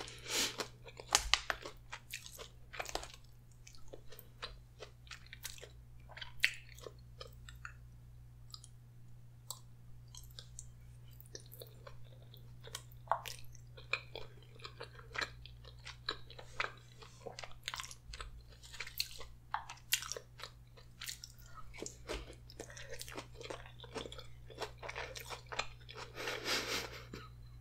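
A person chewing spaghetti with meat sauce, with irregular wet mouth clicks and smacks.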